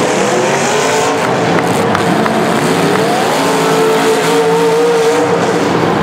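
Demolition derby car engines revving hard. About three seconds in the pitch climbs and holds high, as a car runs at full throttle.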